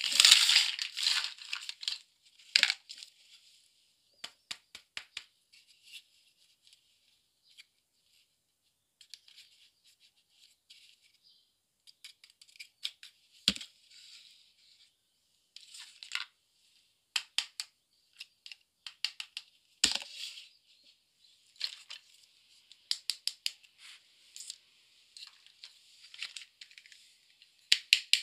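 Small plastic toys being handled and set down on a tabletop: scattered light clicks, taps and rustles with quiet gaps. There is a denser rustle at the start and quick runs of clicks about four seconds in and near the end.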